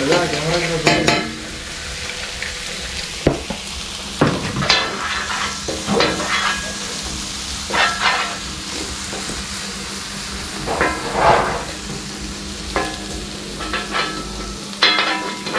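Kotthu roti frying and sizzling on a hot flat griddle, with irregular ringing clanks of metal chopping blades striking the griddle, about one every second or so.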